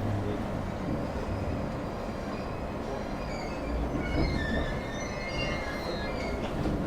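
Inside a Japanese commuter train carriage: the steady low rumble of the train running, with several high, wavering metallic squeals from the running gear starting about three seconds in as the train slows into a station.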